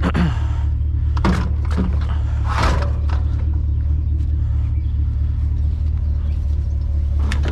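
Steady low drone of a truck's engine and road noise while driving, with three brief rattles in the first three seconds.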